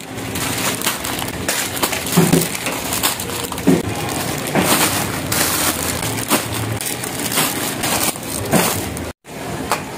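Supermarket background din with frequent clattering and crinkling, as goods and packaging are handled while shopping.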